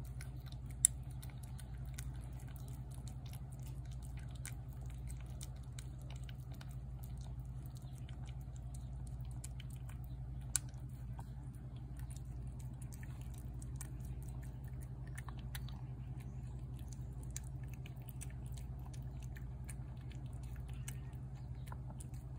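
Feral tabby cat eating wet pâté cat food from a plate: a steady run of small, wet chewing clicks and smacks, with two sharper clicks, about a second in and about ten seconds in.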